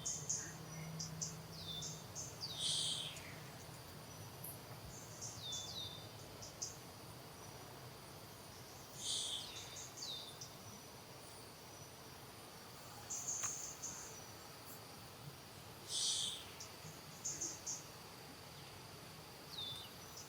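Steady high insect drone, with clusters of short high-pitched chirps and falling squeaks every few seconds.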